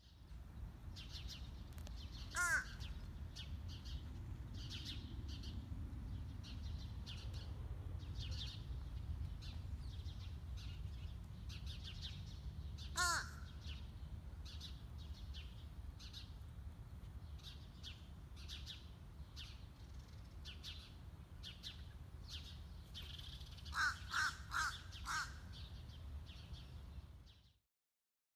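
Crow cawing: one caw about two seconds in, another about halfway, and a quick run of four near the end, over a steady low rumble.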